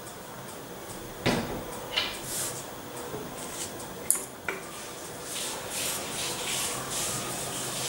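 Metal tailoring scissors cutting through cloth on a table. First come a few separate clicks of the blades and handling, then about halfway through a run of quick snipping strokes.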